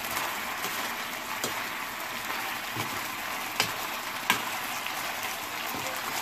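Sauce and vegetables sizzling in a frying pan around a whole fried tilapia while being stirred with a spoon. A steady hiss, with a few sharp clicks of the spoon against the pan, the two loudest a little after halfway.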